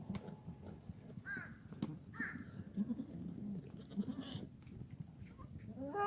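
Black goats bleating: a couple of short, fainter bleats about a second and two seconds in, low grunting calls in the middle, and a loud, long bleat starting near the end, with a few light knocks scattered through.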